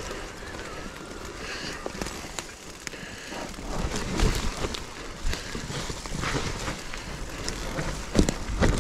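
Mountain bike riding down a wet, rooty dirt trail: tyres rolling over soft mud and leaves, with the chain and frame rattling and clattering over bumps. The hardest knocks come about four seconds in and near the end.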